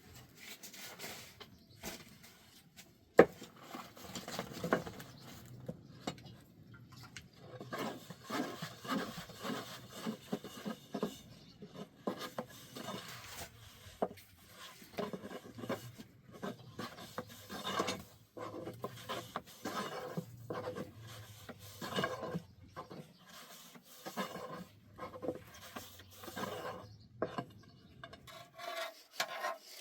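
Irregular rubbing and scraping on wood in uneven strokes, with a sharp knock about three seconds in and another near the middle.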